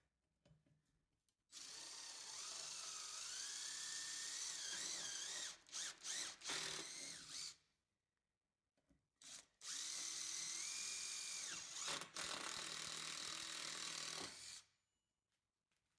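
Power drill running in two long bursts, its pitch wavering and dropping as it bores under load, with a few short stop-start pulses near the end of the first burst.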